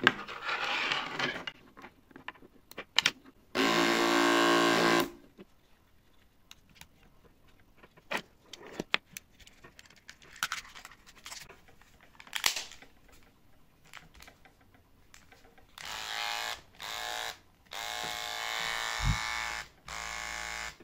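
Braun beard trimmer's small electric motor runs with a steady buzz for about a second and a half, then after scattered clicks and handling of the plastic case it is switched on and off in several short runs near the end. The repaired slide switch now holds the motor at full speed, with no speed drop.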